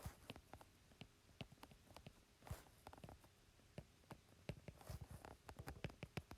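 Faint, irregular clicks and taps of a stylus or pen writing on a tablet, with quiet room tone between them.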